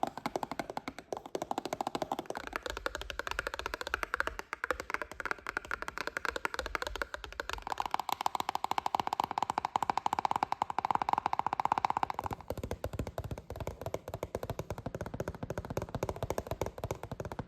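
Fast tapping on cardboard boxes, a rapid, unbroken patter of taps. Its hollow tone changes several times, about two, seven and twelve seconds in.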